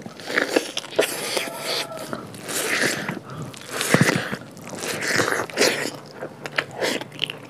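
Close-miked eating sounds: irregular crunchy bites and chewing, one after another, loudest about four seconds in.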